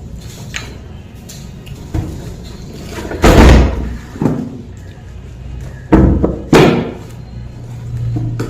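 Four loud knocks or thumps, the first about three seconds in and two close together near the end, over quieter background music.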